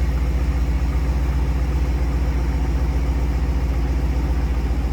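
Jeep Grand Cherokee Summit's Hemi V8 idling steadily with its rear exhaust resonators cut out (straight pipe): a low, even idle.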